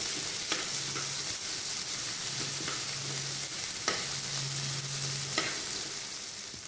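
Chopped onion sizzling in hot oil in a nonstick kadai while a slotted spatula stirs it, the first light sautéing of the onion. A steady hiss runs under a few sharp scrapes and taps of the spatula against the pan, with the loudest about four seconds in.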